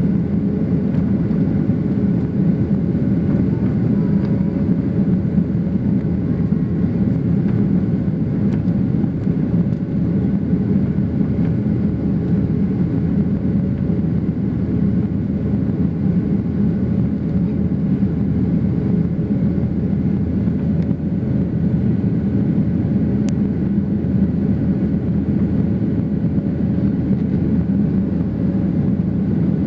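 Steady cabin noise of a Boeing 737 climbing after takeoff: the jet engines and rushing airflow make a low, even drone, with a few faint steady tones above it.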